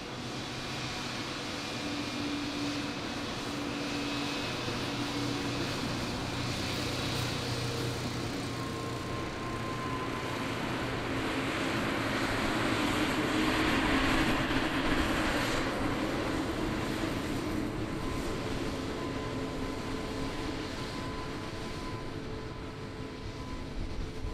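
Jet airliner's engines passing: a continuous rushing roar with steady whining tones, swelling to its loudest a little past halfway and then easing off.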